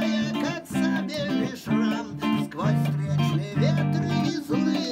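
Electric guitar playing a song, with sustained chords and a moving melody line over them.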